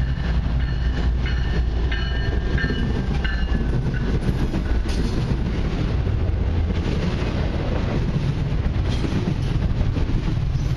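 A long freight train passes close by. Two diesel locomotives go past first, then double-stack intermodal container cars roll by with a steady heavy rumble and the clickety-clack of wheels over the rail joints.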